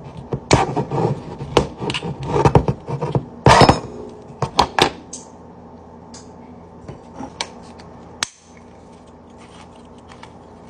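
Cardboard tube of crescent roll dough being scraped, pried and knocked with a small hand tool: a busy run of scratches and knocks for about five seconds, then only a few faint clicks.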